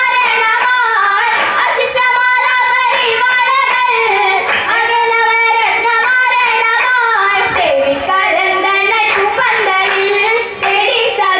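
A chorus of schoolgirls singing a Mappila song for an Oppana dance into microphones, with sharp handclaps from the dancers cutting through the song.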